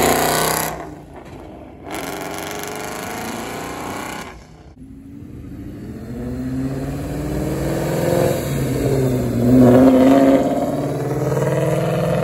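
Ford Mustangs accelerating away hard, their engines revving and rising in pitch. First a blue Mustang pulls off. After a lull, a red Mustang revs up and accelerates past, loudest about ten seconds in.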